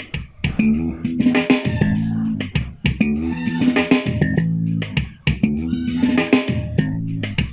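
Guitar-led music with a bass line playing through the Mitsushi Orashare BS02 portable Bluetooth speaker, recorded raw through the room by a microphone.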